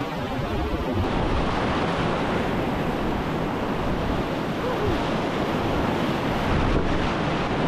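Whitewater rapid rushing and churning around an inflatable kayak running through it, a steady dense rush of water that gets louder about a second in.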